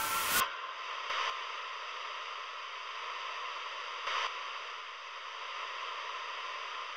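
Steady static hiss, after a louder sound cuts off about half a second in, with two brief soft crackles about one and four seconds in.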